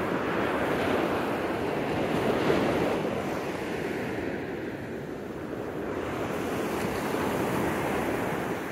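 Ocean surf washing onto the beach, a steady rushing that swells about two seconds in, eases off midway and builds again near the end, with wind buffeting the microphone.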